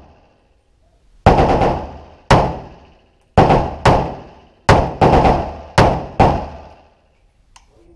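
AK-47 rifle fired as separate shots, about seven in all, spaced half a second to a second apart, some in quick pairs, each shot echoing off the indoor range's walls. A faint click follows near the end.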